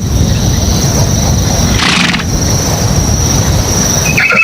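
Horse sound effect: a loud, low rumbling noise with a faint steady high whine and a brief hiss about two seconds in, between neighs.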